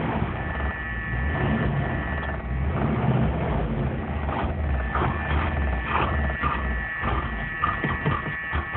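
Classic Ford Mustang engine running unevenly from inside the cabin, warming up after a start following a long time unused, with scattered clicks and rattles. A steady electric buzz from the car's alarm comes in and grows stronger in the second half.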